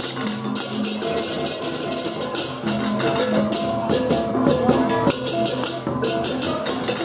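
Balinese baleganjur gamelan playing. Many hand-held crash cymbals (cengceng kopyak) clash together in repeated bursts over drums and steady pitched gong tones.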